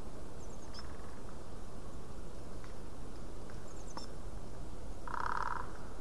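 Wild birds in winter forest: faint, high tit calls about half a second and four seconds in, then a short, fast rattling call about five seconds in, all over steady background noise.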